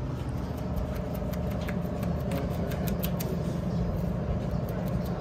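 Crumpled paper crinkling in quick clicks as it is dabbed and rubbed onto a wet spray-painted panel. Under it runs a steady low mechanical hum like an idling engine.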